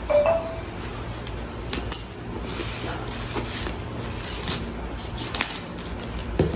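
Scissors cutting into a cardboard box and its packing tape: scattered small snips and crackles over a steady low hum.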